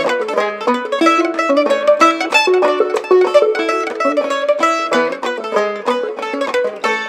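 Mandolin and clawhammer banjo playing an old-time fiddle tune together in a quick, unbroken run of plucked notes, the banjo fitted with a rawhide head.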